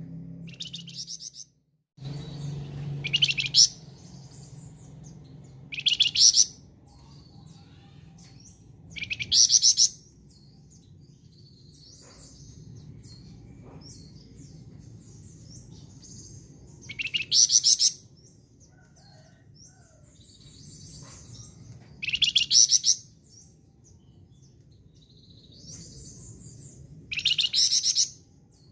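Flamboyan songbird singing: six short, loud, fast-trilled phrases several seconds apart, with softer chirps between them.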